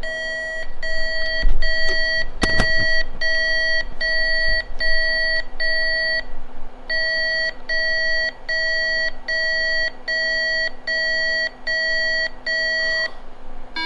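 IBM PS/2 Model 77's PC speaker beeping out the custom debug BIOS's bit code as a string of identical short buzzy beeps, about two and a half a second, in two runs of about thirteen with a brief pause between; all the same pitch, the pattern the team heard while the board was broken. A couple of knocks from handling the motherboard come a second or two in.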